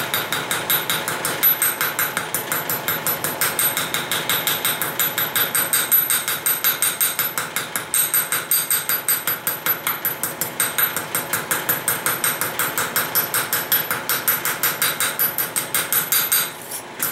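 Rapid, light, ringing strikes of a small reground ball-peen hammer, made into a texturing tool, on 14-gauge sheet metal lying on an anvil, about four to five taps a second; the tapping stops just before the end.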